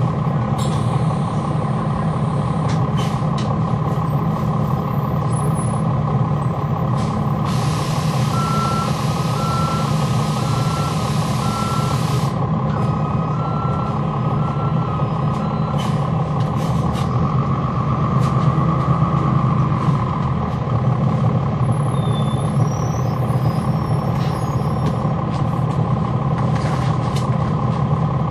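Interior of a NABI 40-SFW transit bus with its Cummins ISL9 diesel engine running steadily, engine fans on. About eight seconds in, a hiss of released air lasts about five seconds, with a string of evenly spaced beeps that runs on a few seconds past it.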